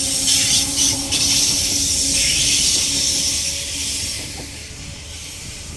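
Waratah electric suburban train departing, passing close by with a steady hum and rushing noise, then fading as it pulls away.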